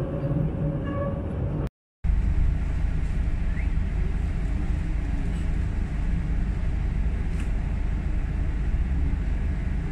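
Steady city street traffic noise at a busy junction, a low rumble of car engines and tyres. Just before it, the sound cuts out briefly about two seconds in.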